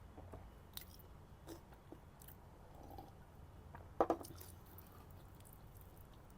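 A person chewing a mouthful of chicken biryani close to the microphone: soft, wet mouth clicks and smacks, with one louder click about four seconds in.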